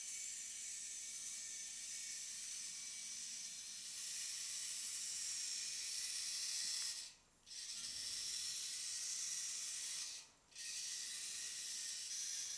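A small wheeled robot's Boe-Bot continuous-rotation drive servos whirring with a steady high hiss as it drives. The whir cuts out briefly about halfway through and again about three seconds later, as the motors stop and start.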